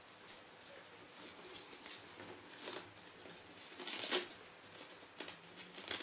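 Soft scratchy rustling of hands pressing a Velcro strip along the edge of a latex mask, in short irregular bursts with a louder rustle about four seconds in.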